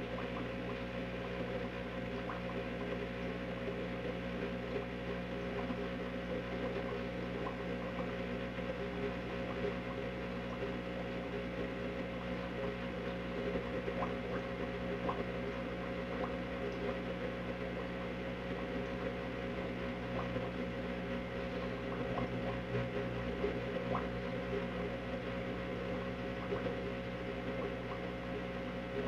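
Steady background hum with hiss, and a few faint ticks scattered through it.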